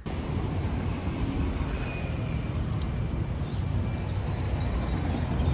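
Outdoor city street noise: a steady low rumble of traffic, with a faint high squeak or two partway through.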